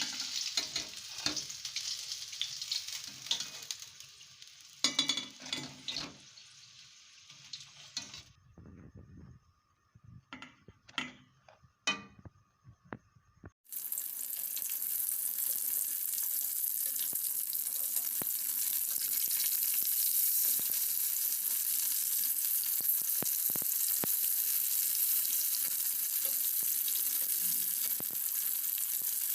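Batter-coated stuffed vegetable pieces deep-frying in hot oil, sizzling. The sizzle dies down over the first few seconds with some clinks and knocks. After a quiet stretch it comes back suddenly at about the midpoint as a steady, loud sizzle.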